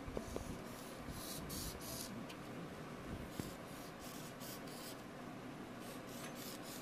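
Red felt-tip marker drawn across a foam plate: a series of short, faint, scratchy strokes as stars are drawn.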